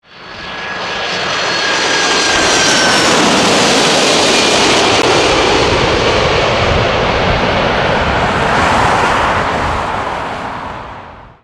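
Jet engines of a Boeing 747-400 passing low on landing approach: a loud, steady roar with a high whine that dips slightly in pitch over the first few seconds. It fades in at the start and fades out near the end.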